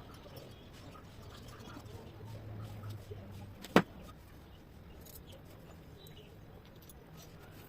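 A single sharp click or knock just under four seconds in, standing out above faint scattered handling ticks and a low hum.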